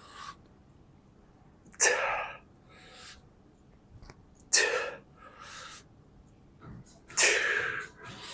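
A weightlifter's forceful breathing through the effort of a set: three sharp, loud exhalations about two and a half seconds apart, each followed by a softer breath.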